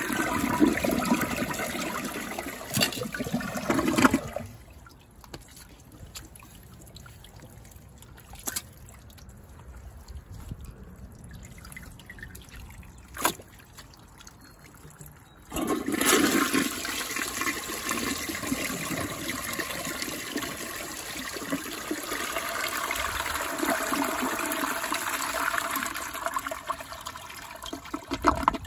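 Toilet flushing, the bowl water rushing and swirling down the drain; it dies away about four seconds in, leaving a low trickle with a couple of clicks. About sixteen seconds in a second flush starts suddenly with rushing water that carries on until near the end.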